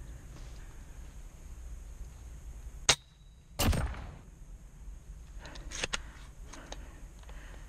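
Spring-powered bolt-action airsoft sniper rifle (Double Bell VSR) firing: a single sharp crack about three seconds in, then a fuller shot sound just after that fades over half a second. A few light clicks follow about two seconds later.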